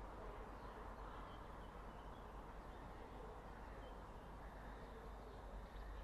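Faint, scattered bird chirps over a quiet, steady low rumble of background noise.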